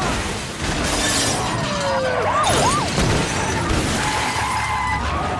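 Car-crash sound effects from a chase: vehicles colliding with glass shattering and metal scraping on the road. There are crashes about a second in and again around the middle, along with short tyre squeals.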